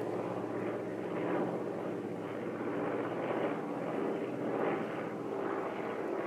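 Propeller engine of a water-bombing firefighting plane flying overhead: a steady drone that swells and fades a little as it passes.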